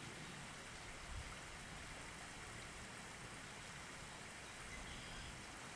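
Steady low hiss of room tone, with one soft low thump about a second in.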